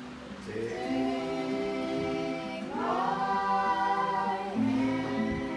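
Several voices, children's and adults', singing a song together with an acoustic guitar strummed along. About three seconds in the voices glide up to a higher held note.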